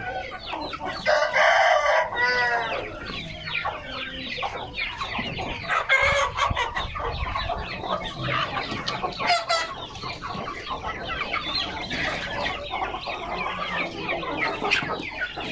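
A flock of Aseel chickens clucking and calling continuously while feeding, with an Aseel rooster crowing loudly about a second in.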